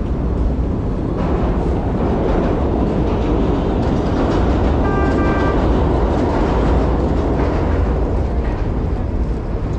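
Loud, steady rumble of city street noise, with a brief high-pitched tone about five seconds in.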